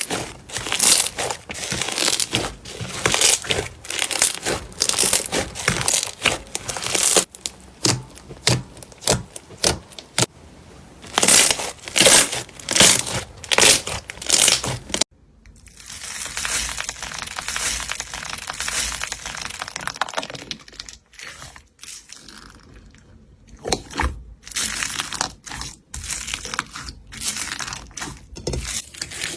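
Slime being pressed and worked by hand, giving a dense run of small clicks and pops. The texture changes abruptly about halfway through as a different slime is handled.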